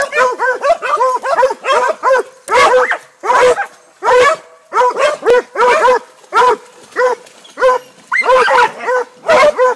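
Hog-hunting dogs barking in rapid, excited bursts of several barks a second with short pauses, the sound of dogs that have caught and are holding a wild hog.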